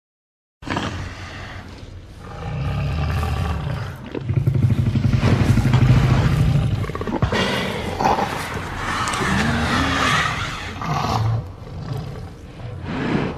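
Tyrannosaurus rex roar sound effect: a long sequence of deep roars and growls that starts suddenly about half a second in and is loudest around the middle. A cry rises and falls in pitch a little past the middle, and the sequence ends with a last roar that fades out.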